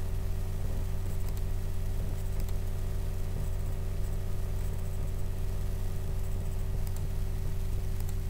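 Steady low electrical hum, a stack of evenly spaced steady tones, the background noise of a desk recording setup, with a few faint clicks.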